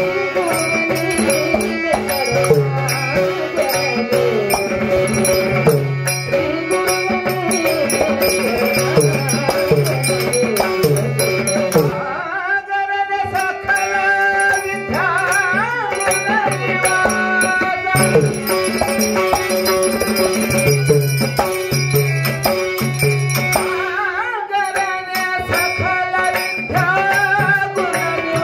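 Live devotional bhajan: a man sings into a microphone over a harmonium's held chords, with tabla keeping a steady rhythmic pattern and small hand cymbals clicking a fast beat. The tabla drops out briefly about twelve seconds in, then comes back.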